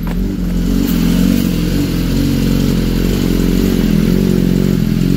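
BMW S1000RR race bike's inline-four engine idling steadily, warming up to bring the oil temperature up before an oil change.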